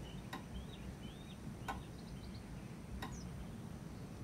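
Faint room tone from a film scene: a low, even background with soft clicks about every second and a half and a few faint high chirps.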